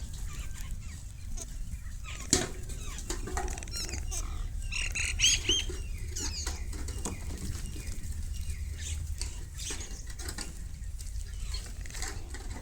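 Birds, mynas among them, gathering at scattered grain: wings flapping and scattered sharp clicks over a steady low rumble, with a short run of whistled, rising-and-falling calls about five seconds in.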